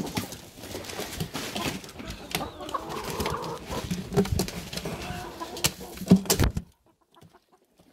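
A flock of 25-week-old brown laying hens clucking while they peck at feed, with many small taps and clicks. A louder knock about six seconds in, then the sound drops to near silence for the last second.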